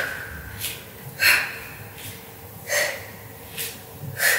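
A woman's short, forceful breaths out, one with each cross lunge, coming about every second and a half, with fainter breaths in between.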